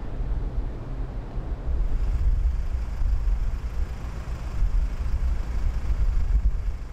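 Low, uneven outdoor rumble, almost all of it deep bass with a faint hiss above, getting somewhat louder about two seconds in.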